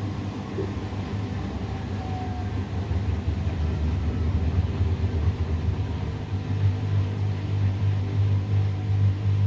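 Samsung WW70T4020EE front-loading washing machine on its drain/spin cycle with clothes, the drum running with a steady low hum that grows louder toward the end.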